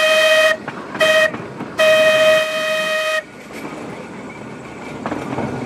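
Tram horn sounding a steady single-pitched blast. One blast ends about half a second in, a short toot follows about a second in, then a long blast of about a second and a half. After that the tram keeps rolling along the track with a low rumble.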